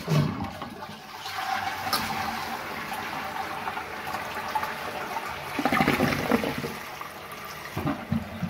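Toilet flushing: a sudden rush of water that starts at once, then steady running water as the cistern empties and the newly fitted fill valve refills it, swelling louder about six seconds in.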